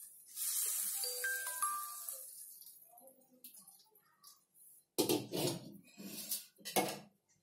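Stir-fried water spinach hissing in a hot pan as a spatula lifts it out, with a few short metallic clinks in the first two seconds. About five seconds in come several loud clattering knocks of cookware being handled.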